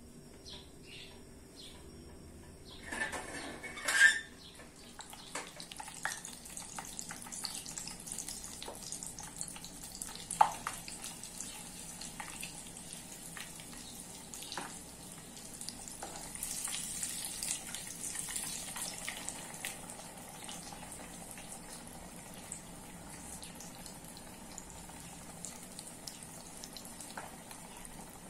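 Apple-and-cinnamon batter dumplings frying in a pot of hot oil: steady sizzling with small clinks of metal spoons. A loud metal clatter about four seconds in, as the pot lid comes off.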